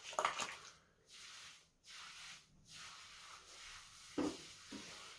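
Hands rubbing gel through wet curly hair: faint, soft rubbing strokes in short patches, with a brief voice sound a little after four seconds in.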